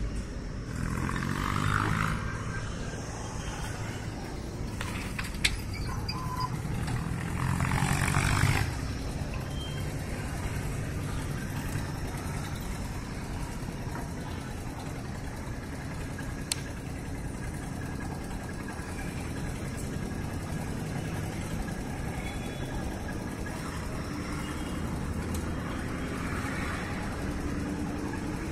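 Motor vehicle running with a steady low rumble that swells briefly twice, near the start and about eight seconds in.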